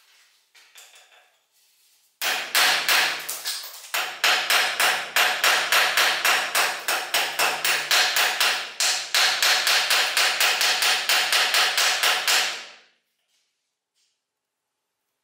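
Hammer striking a rusty iron bar clamped in a bench vise: a quick run of ringing metal-on-metal blows, about three to four a second. They start about two seconds in, pause briefly near four seconds, and stop a couple of seconds before the end.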